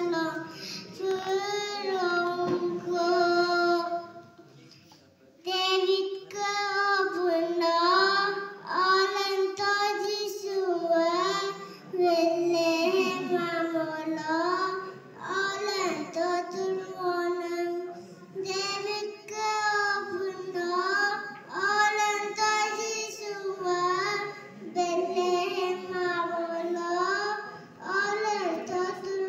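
Two young girls singing a song together into microphones, with a short break about four seconds in before the singing resumes.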